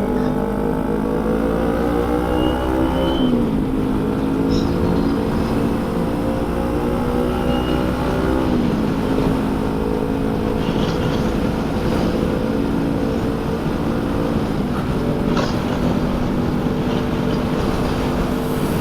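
Motorcycle engine running at road speed, its pitch climbing slowly and then dropping sharply twice, about three and eight and a half seconds in, as it shifts up through the gears. Steady wind noise rushes over the microphone throughout.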